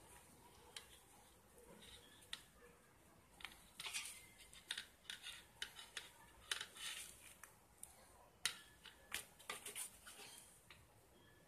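Faint handling noise of fingers fitting a glasses strap's rubber end loops onto the temple arms of eyeglasses: scattered small clicks and rustles, thickest in the middle stretch.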